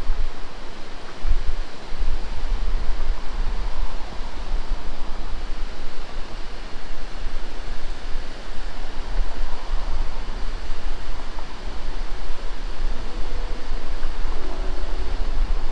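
Wind buffeting the microphone with a low rumble, over the steady rush of river water pouring over a weir. A faint hum comes in near the end.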